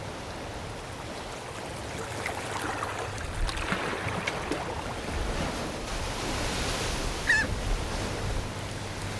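Seagulls crying over the steady wash of surf and water at tide pools. Several gull cries come between about two and five seconds in, and one short, sharp cry comes near the end.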